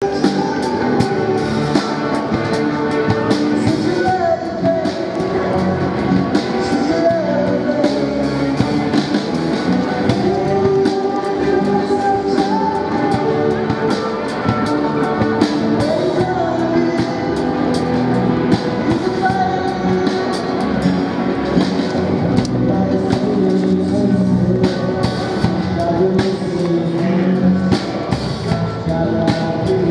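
Live amplified rock band playing: a singer over guitars and a drum kit, going without a break.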